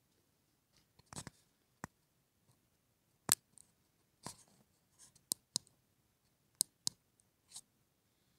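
Handling noises: a dozen or so sharp, irregular clicks and a few brief rustles, with no steady sound between them.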